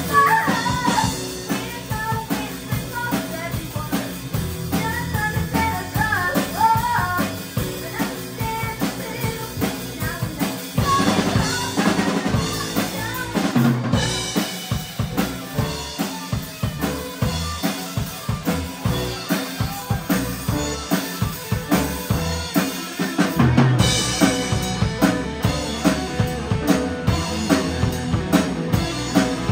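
Live rock band playing a song, with drum kit, electric guitars and bass guitar. The drums keep a steady, driving beat of kick and snare hits.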